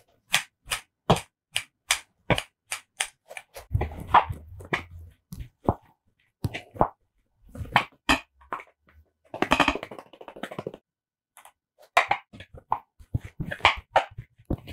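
Close-miked mukbang eating sounds: sharp clicks of a spoon against the bowl, two or three a second at first, then bursts of crunchy mixing and chewing noise as the cucumber bibimbap is stirred and eaten.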